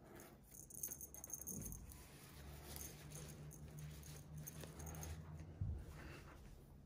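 Faint jingling of the small bell on a cat wand toy being waved, with soft rustles, a low hum through the middle and a light thump near the end.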